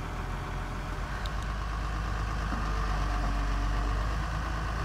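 Komatsu PC300 excavator's diesel engine running steadily, a little louder from about two seconds in.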